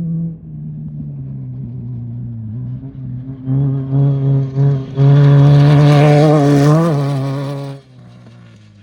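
Off-road race vehicle's engine running hard as it comes up and goes past. It grows louder from about halfway in, is loudest for two or three seconds with a brief rise in pitch, then drops away suddenly near the end.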